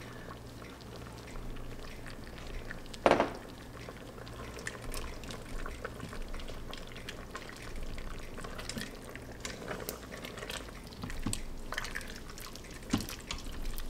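Silicone spatula scraping pineapple chunks out of a glass bowl into the Instant Pot's stainless steel inner pot, then stirring through thick sauce, with faint clicks and scrapes against the pot. A single louder knock comes about three seconds in.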